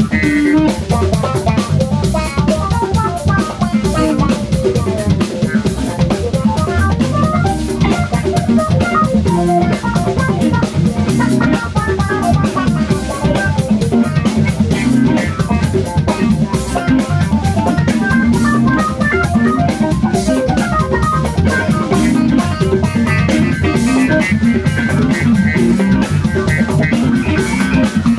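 Live jazz-funk-rock band playing: electric guitar running quick lines over a steady drum kit and bass guitar groove.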